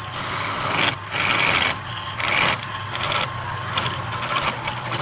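Woodturning tool cutting the rim of a spinning hollow wooden box on a lathe, a scraping cut that comes and goes in short passes over the lathe motor's steady low hum.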